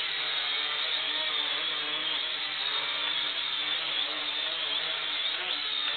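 Sharper Image DX-4 toy quadcopter hovering, its four small electric motors and propellers giving a steady high whine whose pitch wavers slightly as the pilot corrects its drift.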